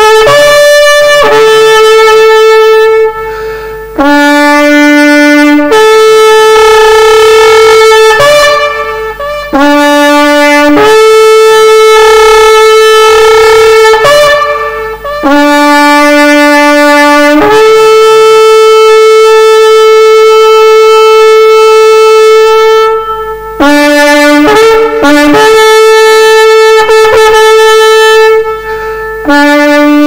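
Shofar blown in a series of loud blasts on two notes, each blast usually starting on the lower note and jumping up to the higher one. There is one long held blast in the middle, and clusters of short quick blasts near the start and near the end.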